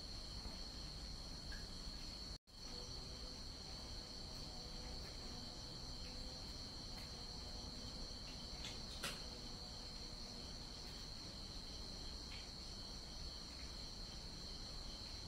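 Crickets chirring steadily at night, a continuous high-pitched trill, briefly cut off about two and a half seconds in. A faint click near the middle.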